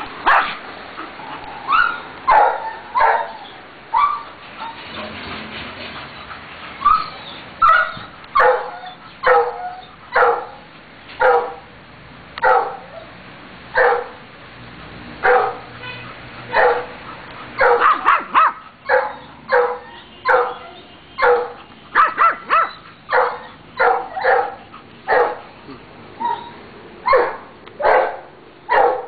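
A dog barking over and over in play, short sharp barks about one a second, some coming in quicker runs.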